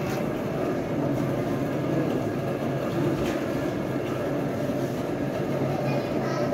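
Steady mechanical hum and rumble, even throughout, with a continuous noisy wash over it.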